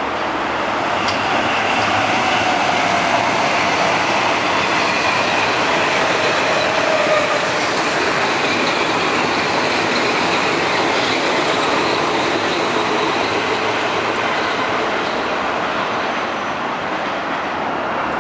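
Metro-North Kawasaki M8 electric multiple-unit train passing close by: a steady, loud rush of steel wheels on rail with a faint high whine over it.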